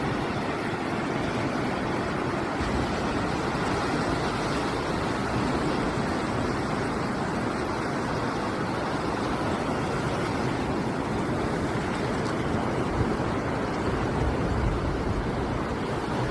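Sea waves breaking, a steady unbroken wash of surf noise with no distinct single wave crashes.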